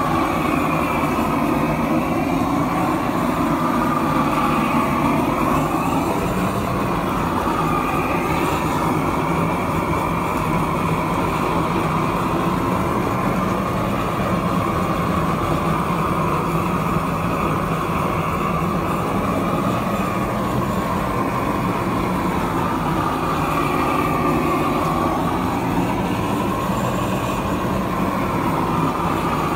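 Propane roofing torch burning steadily: a loud, even rush of flame whose tone wavers slowly as the nozzle is swept back and forth over icy pavers to melt the ice.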